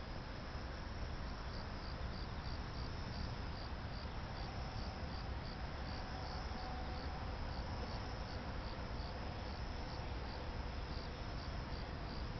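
A cricket chirping in a steady rhythm, about four high chirps a second, over a constant hiss.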